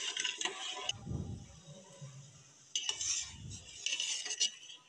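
A metal spoon stirring milk in an aluminium pot, scraping and clinking against the pot's side and bottom in several short bursts.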